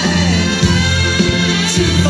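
Music: a song with a low bass line and held notes.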